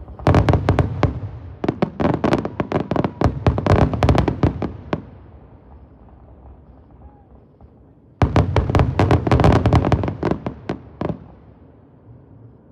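Fireworks going off in two volleys of rapid, sharp crackling bangs. The first lasts about five seconds; after a lull of about three seconds, a second volley lasts about three seconds.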